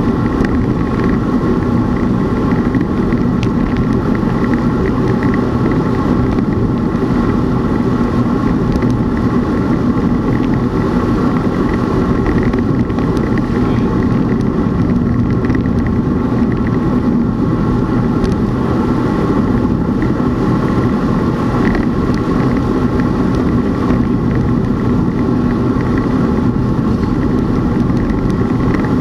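Steady rushing wind and road noise from riding a road bicycle at speed, with a constant hum running through it.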